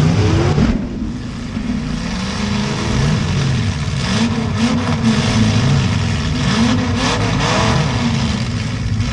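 Demolition derby car engines revving hard, several at once, their pitch repeatedly rising and falling. A few short sharp noises come near the middle and again later on.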